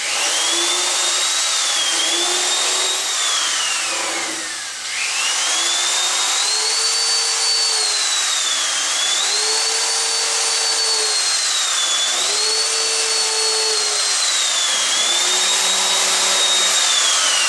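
Corded electric drill driving 2-inch Torx screws into mahogany: a steady motor whine that dips in pitch every few seconds under load and recovers. It spins down about four and a half seconds in, starts again, and spins down once more at the end.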